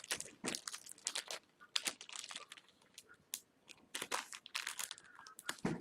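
Light, irregular clicks and crinkling rustles of hands working with small plastic action-figure parts.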